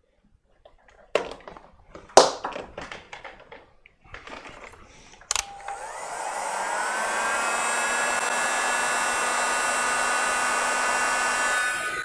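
A few handling clicks and knocks, then a heat gun switched on with a click about five seconds in. Its fan spins up to a steady blowing whine as it shrinks heat-shrink tubing over freshly soldered fan wires.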